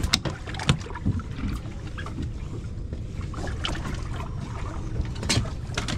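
Steady low rumble aboard a small fishing boat on the water, with a few short knocks and clicks from handling on deck.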